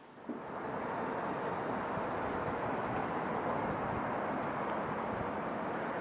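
Steady running noise of a moving city bus. It cuts in sharply just after the start and then holds even.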